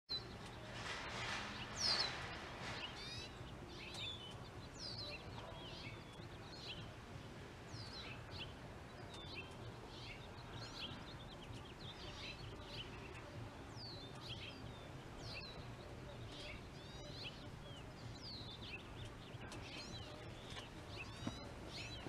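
Small birds chirping repeatedly over a steady low background hum, with a brief louder noise about two seconds in.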